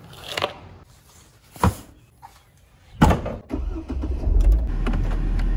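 Car keys jingle as they are picked up, with a sharp click a little later. Then comes a loud thump, and the car engine cranks, starts and settles into a steady idle.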